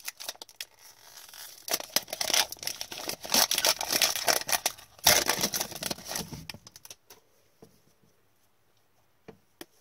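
Foil wrapper of a 2020-21 Upper Deck Artifacts hockey card pack being torn open and crinkled by gloved hands. It crackles in a run of sharp bursts for about five seconds, the loudest tear about five seconds in, then stops about seven seconds in, leaving only a couple of faint clicks.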